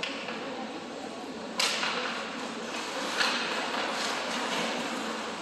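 Sharp knocks of ice hockey play, the puck and sticks striking, echoing in a rink over a steady background hubbub. Two loud knocks come about a second and a half apart, with a few lighter ones after.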